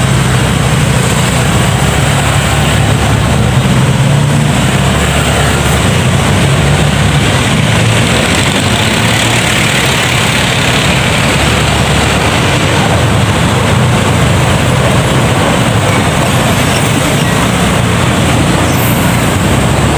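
A motorcycle being ridden: a steady low engine hum under loud, even wind noise rushing over the microphone.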